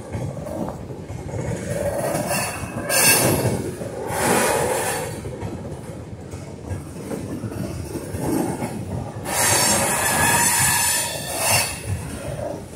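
Loaded freight train flatcars rolling slowly across a wooden trestle: a steady rumble and clatter of wheels on rail, broken by high-pitched wheel squeals about three and four seconds in and a longer squeal from about nine to eleven and a half seconds.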